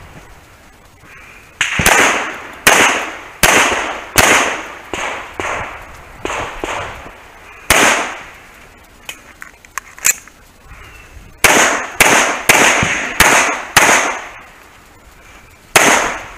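Semi-automatic pistol fired in quick strings of two or three shots, about fifteen shots in all, each shot's report fading away after it. A pause of a few seconds near the middle holds only a couple of fainter pops before the firing resumes.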